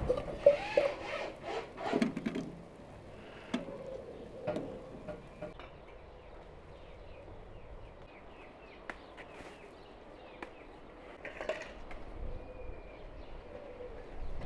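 A metal ladle knocking and clattering in a pot of soup for the first two seconds or so, then faint birdsong with short chirps and a brief rustle of leaves.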